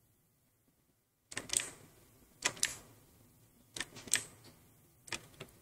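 A run of sharp, typewriter-like clicks, singly or in quick pairs, about one a second, starting a little over a second in after silence.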